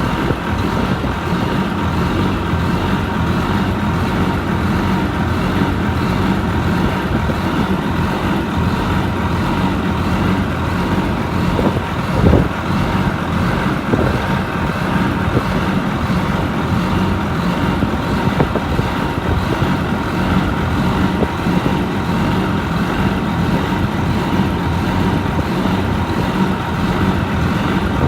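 Cummins QSM11 inline-six diesel engine of a reach stacker running steadily, with a constant hum and whine over the engine noise. A single short knock sounds about twelve seconds in.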